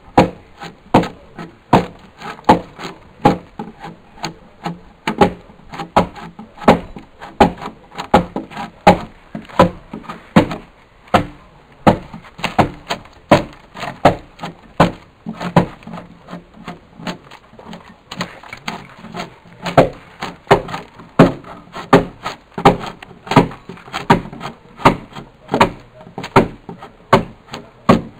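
Curved drawknife pulled in short strokes along a peeled log, shaving out a long groove: a steady run of sharp wood-cutting strokes, about two a second.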